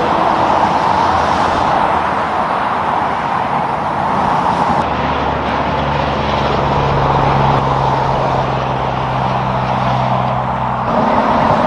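Road traffic passing at speed: a steady wash of tyre noise, with a heavy vehicle's low engine hum joining about halfway through and cutting off sharply near the end.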